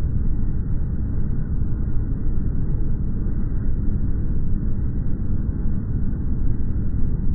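Phone-recorded ambient sound slowed down to a tenth of its speed, heard as a steady, low, muffled noise with no distinct events.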